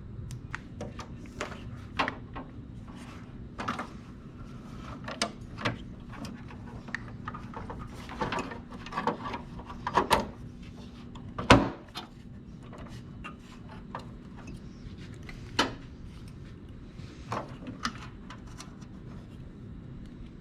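Irregular clicks and knocks of hand work on an electrical contactor and its metal mounting plate, with one sharp knock about eleven and a half seconds in, over a steady low hum.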